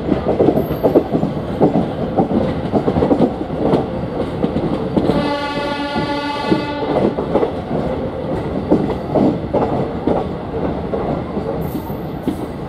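Diesel train rolling past at speed, its wheels clattering steadily over the rail joints. Its horn sounds once, for nearly two seconds, just past the middle.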